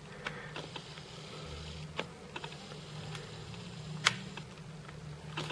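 Scattered small clicks and taps of fingers pressing the buttons of a handheld SJ7000 action camera to switch on its Wi-Fi. The sharpest click comes about four seconds in, over a low steady hum.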